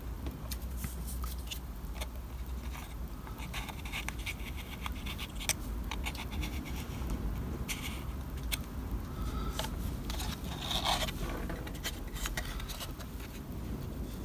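Fingers handling a small card model building: light scratching and scraping of card against skin, with scattered small clicks and a slightly louder rubbing scrape about ten seconds in, over a low steady hum.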